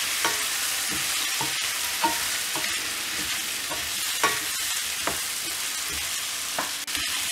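Chopped vegetables (carrot, drumstick, brinjal) sizzling in hot oil in a wok while being stirred with a wooden spoon, which scrapes and knocks against the pan every half second to a second.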